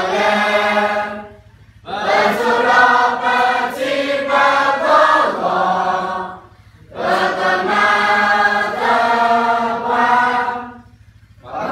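A large group of students singing together in unison, in long held phrases, with brief pauses between lines about every four to five seconds.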